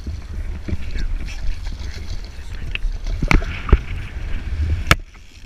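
Wind rumbling on a GoPro microphone over water sloshing against a small boat's hull. A few sharp knocks come a little past three seconds and again near five seconds, and the sound drops off abruptly just after.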